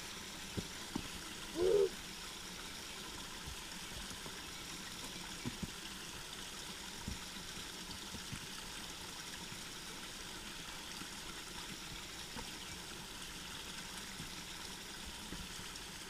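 Shallow rocky creek trickling steadily over stones, with a few light clicks of footsteps on the creek rocks and a brief rising hoot-like call about two seconds in.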